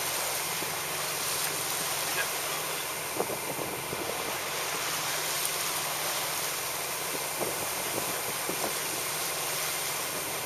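Steady rush of wind and sea, with a boat engine running at idle as a low hum underneath.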